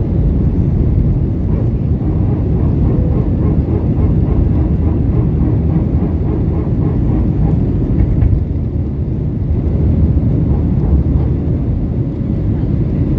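Airbus A320-232 cabin noise during takeoff: its IAE V2500 engines at high thrust and the rush of air, a loud steady low rumble.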